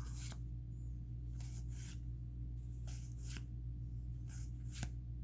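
Pokémon trading cards being handled and flipped through by hand: short, scattered papery rustles and clicks, several times, over a steady low hum.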